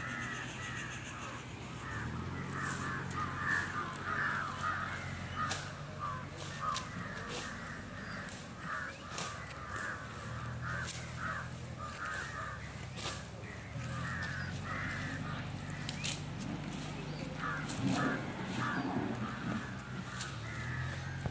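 Crows cawing over and over, several birds calling throughout, with a low steady drone that comes and goes underneath and scattered sharp clicks.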